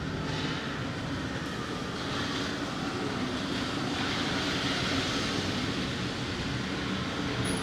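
Busy street ambience after rain: a steady mix of traffic noise and engine hum, growing louder about halfway through as a vehicle passes.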